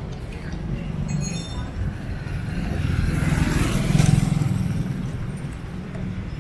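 A motor vehicle passing close by on the street, its engine and road noise swelling to a peak about four seconds in and then fading away.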